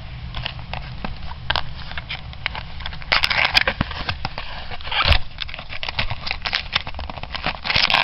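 Cardboard box and packing tape being handled: a run of crackling, scraping and small clicks, louder about three seconds in, again around five seconds and near the end, as the taped lid is worked off the box.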